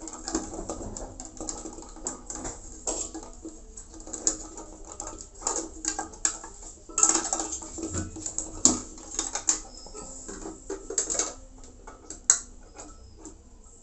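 Hands fitting the white plastic radio housing onto the centre of a Ubiquiti PowerBeam M5-400 dish reflector: irregular plastic clicks, knocks and handling rattles. The clicks thin out near the end, with one sharp click.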